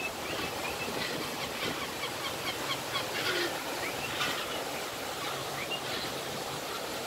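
Gulls giving many short, high calls that slide in pitch, over the steady rushing noise of a boat moving on the water.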